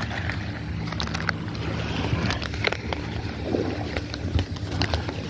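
A steady low engine hum runs throughout, with scattered sharp clicks and knocks of gear being handled close to the microphone.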